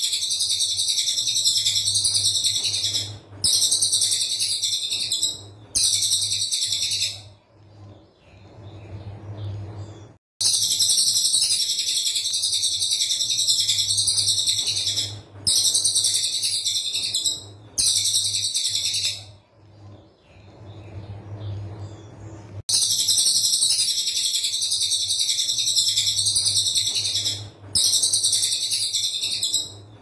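Brown cililin singing its tight 'tembakan' song: bursts of extremely rapid, shrill, high-pitched notes, each burst lasting from about one to five seconds. The bursts come in groups of three with a pause of about three seconds between groups, over a faint steady low hum.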